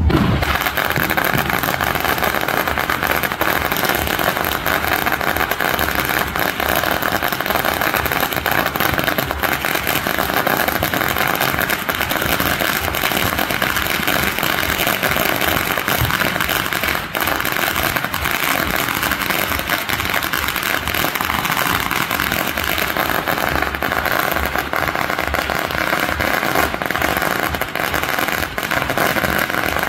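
A long string of firecrackers hung from a pole going off continuously: a dense rattle of rapid bangs that keeps up without a break.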